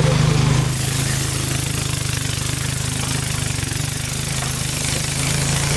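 River boat's engine running with a steady, even low hum, under a broad rushing hiss.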